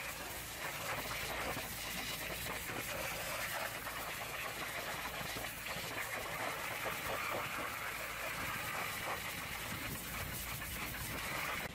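A hot-water pressure-washer jet spraying a truck's wheel rim and tyre: a steady hiss of the high-pressure stream with spattering water. It stops right at the end.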